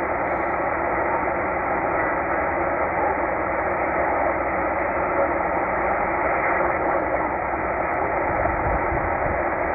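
Tecsun H-501x shortwave receiver's speaker giving steady band noise and static in upper sideband mode as it is tuned up through the 20 meter amateur band, with no clear signal.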